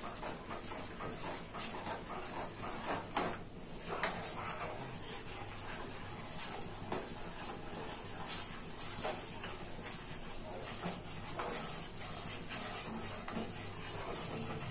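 A steel spoon stirring a milk and sago-powder mixture in a steel pot, with scattered light clicks and scrapes of the spoon against the pot, over a steady hiss. It is kept stirring continuously so the mixture doesn't stick to the bottom.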